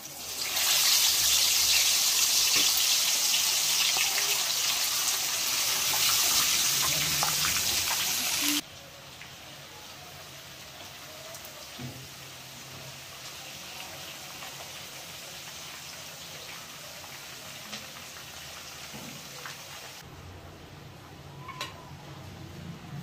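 A whole fish sizzling loudly in hot oil in a frying pan as it goes in. The sizzle cuts off suddenly about eight and a half seconds in and gives way to a quieter, steady frying sizzle.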